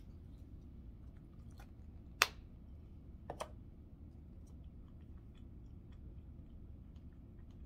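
Faint chewing, with one sharp click about two seconds in and a pair of softer clicks about a second later, over a steady low room hum.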